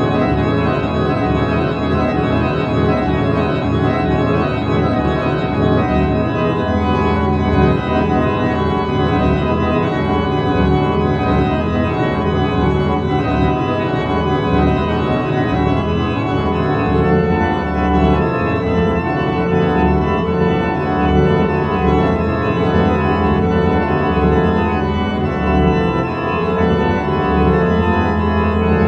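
Music of long, slowly changing organ chords.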